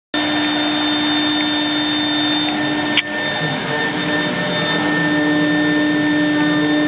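CNC router running, a steady machine whine with several held tones over a loud hiss, with one sharp click about three seconds in.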